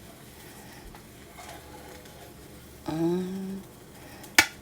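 Faint steady kitchen background with a short voice sound, like a hum, about three seconds in, then a single sharp clink of kitchenware near the end as the omelette is lifted out of the pan.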